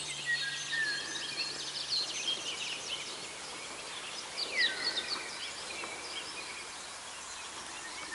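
Several songbirds singing and calling: quick chirps, a fast trill and falling whistles overlapping, with a louder run of descending calls about halfway through.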